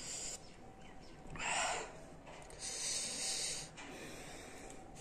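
A man breathing hard through his nose and mouth against the burn of a Carolina Reaper chili. There is a short snort-like puff of breath about a second and a half in, then about a second of hissing breath through the mouth.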